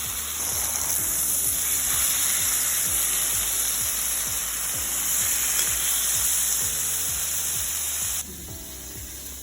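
Marinated chicken thighs searing in hot oil in a skillet: a steady, loud sizzle that drops off abruptly a little past eight seconds in.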